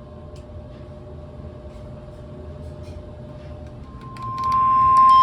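Weather radios sounding the NOAA Weather Radio warning alarm, a single steady high tone. It is faint at first, with a fainter lower tone beneath, then swells to loud about four seconds in and cuts off abruptly. It signals an incoming warning broadcast.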